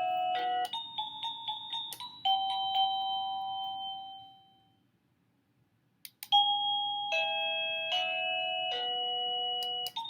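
SadoTech CXRi wireless doorbell receiver playing its electronic chime tunes one after another as the music button is pressed to pick a ringtone. Short melodies of clear tones, a new tune starting with a click, and a pause of about a second and a half halfway through.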